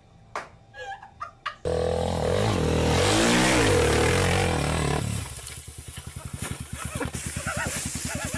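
Motorcycle engine revving hard, its pitch swinging up and down, starting suddenly about a second and a half in; after about five seconds it drops to a rapid, even chugging.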